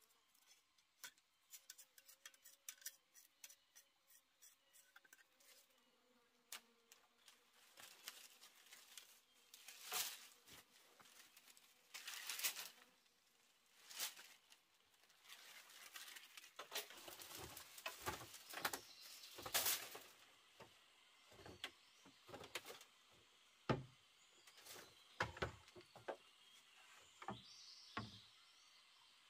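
Scattered light knocks and clicks with a few short scraping or rustling bursts, getting busier about halfway through.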